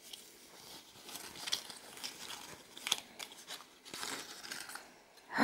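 Soft, irregular rustling and scraping as a small cotton drawstring pouch is handled and pulled open by hand, its cord worked loose.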